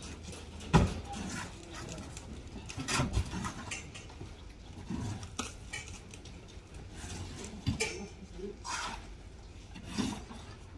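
Scattered metallic clinks and knocks every couple of seconds, the loudest about a second in, from hand work on a building site where buckets are being passed up onto steel scaffolding.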